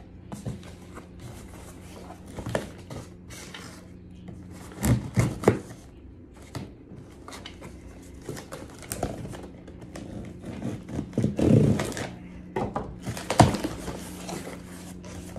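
A cardboard shipping box being opened with a knife: irregular scraping, rustling and clicking of cardboard. Louder knocks come about 5, 11.5 and 13.5 seconds in.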